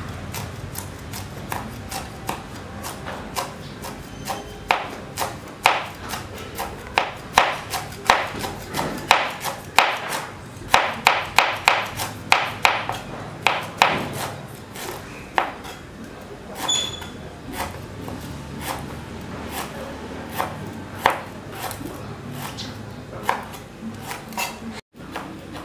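Chef's knife chopping fresh herbs on a plastic cutting board: a string of irregular taps of the blade on the board, quicker and louder in the middle and sparser toward the end. A short high ping rings out once about 17 seconds in.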